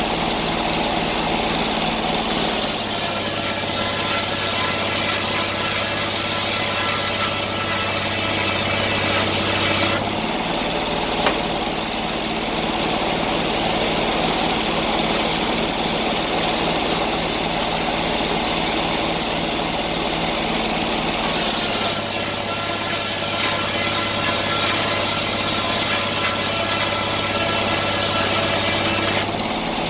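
Portable sawmill's engine running steadily. A low steady hum joins in twice, for about seven seconds each time: once starting a couple of seconds in, and again past the two-thirds mark.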